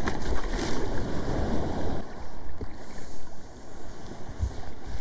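Wind buffeting the microphone over shallow sea water sloshing around a wader's legs, louder for the first two seconds, with a short low thump near the end.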